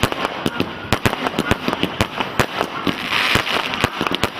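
Fireworks going off in rapid succession: a dense run of sharp bangs and cracks, several a second.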